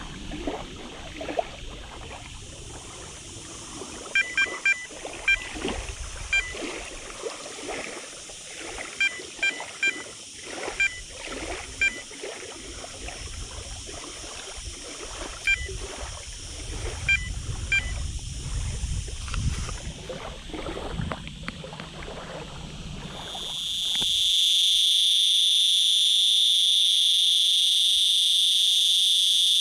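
Wind rumbling on the microphone while a fishing rod and reel are handled, with knocks and a few groups of short high pips. About 24 seconds in this gives way abruptly to a steady high-pitched insect chorus.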